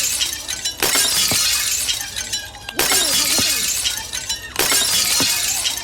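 Glass-shattering sound effect played over and over: a sudden smash of breaking glass followed by tinkling shards fading out, starting afresh three times in quick succession.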